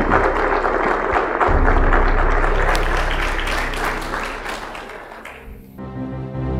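Congregation applauding, a dense patter of many hands that fades away over about five seconds, with soft instrumental music taking over near the end.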